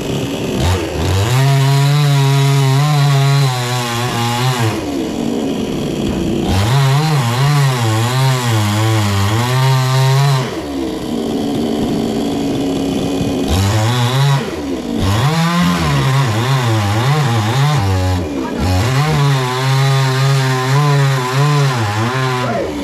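Two-stroke chainsaw cutting into a coconut palm trunk, revved to full throttle in four long runs of a few seconds each, the pitch wavering under load, and dropping back to a lower idle between runs.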